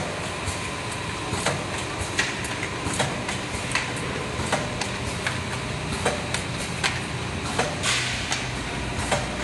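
YX-CP100 automatic linear cartoning machine running: a steady mechanical hum with a sharp clack about every three-quarters of a second as it cycles.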